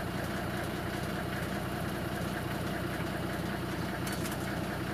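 Engine idling steadily, an even low hum.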